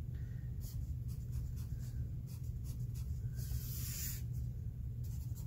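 Pencil scratching on paper: a series of short strokes, then one longer stroke at about three and a half seconds as a line is drawn across the page. A steady low hum sits beneath.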